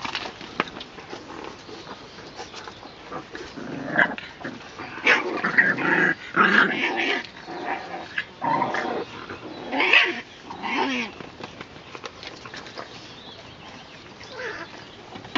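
French bulldog puppies play-growling as they tussle over a fur collar, with a run of loud, rough growls through the middle.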